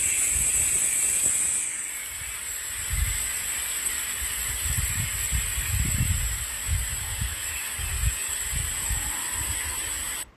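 Storm noise: irregular gusts of wind buffeting the microphone over a steady high hiss. It cuts off abruptly near the end.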